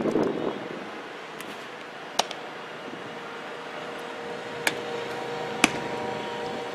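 Sharp pops of a pitched baseball smacking into a catcher's leather mitt, three in all: one about two seconds in, and two close together near the end, the last and loudest just after the pitcher's delivery. A steady mechanical hum with faint tones runs under them in the second half.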